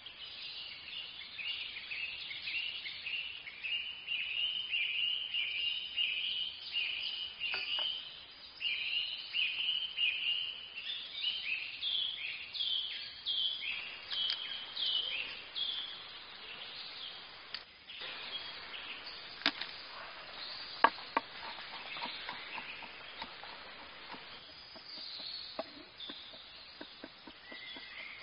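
Chirping, high and about two a second, carries through the first half. In the second half come a few sharp knocks and a run of light taps of a knife on a wooden cutting board as garlic is chopped.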